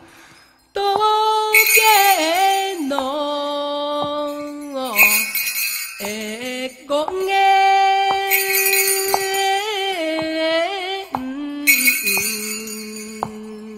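Background music: a slow Japanese folk song sung in long, wavering held notes, with bells shaken in short bursts every few seconds. It starts after a brief pause in the first second.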